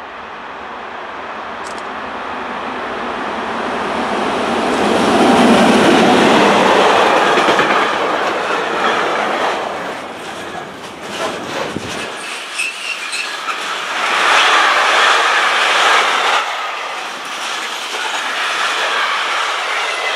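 Electric-hauled freight train passing close by. Its rumble swells to a peak about five seconds in as the locomotive goes by. Then the wagons, loaded with logs, roll past with wheels clattering over the rail joints and a few brief wheel squeals.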